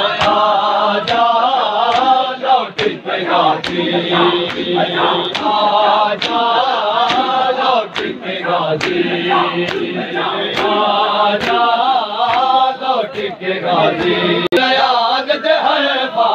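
Men chanting a noha, a Shia mourning lament, together in a rising and falling melody, with the sharp slaps of hands beating on bare chests (matam) in a steady rhythm of a little under two a second.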